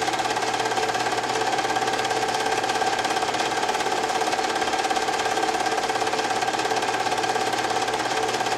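Film projector running with a steady, fast, even mechanical clatter and a constant motor hum.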